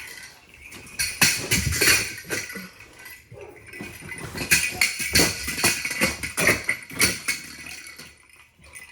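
Jingle-bell cat toy with a small ball inside, jingling in irregular shaken bursts as a young Rottweiler tosses and mouths it, quieter near the end.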